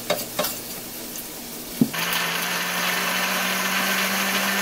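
Countertop blender switched on with a click about two seconds in, then its motor running steadily as it purées boiled guajillo chiles, tomato, onion, garlic and spices with some of their cooking water into a chile sauce.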